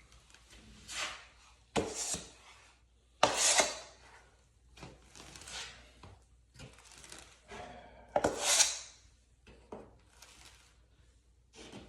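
Drywall taping knife scraping joint compound over a butt joint: a series of separate scraping swipes about a second or two apart, several of them starting with a sharp tap.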